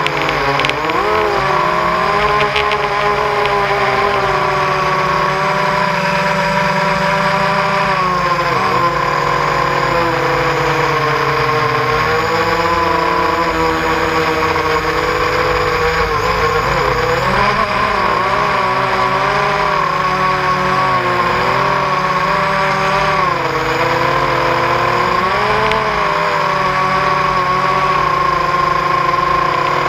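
Four brushless motors and propellers of a ZMR250 FPV racing quadcopter, heard from the GoPro mounted on its frame: a loud whine whose pitch rises and falls with the throttle as it manoeuvres, dropping sharply a few times.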